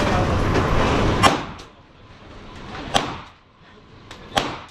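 Three AR-15 rifle shots about a second and a half apart, each with a short echoing decay from the indoor range. A loud rushing noise cuts off just before the first shot.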